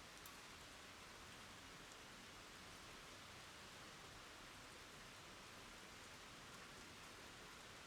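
Faint, steady rain falling on the ground and a water surface, with a few single drops ticking out.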